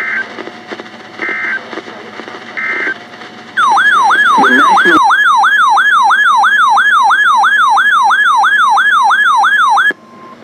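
Three short bursts of EAS digital data tones (the end-of-message code) about 1.3 s apart, then a loud electronic siren that yelps up and down about three times a second for about six seconds and stops abruptly.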